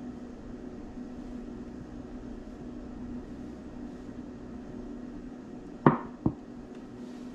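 Steady low kitchen hum, broken about six seconds in by two sharp knocks half a second apart, the first the louder.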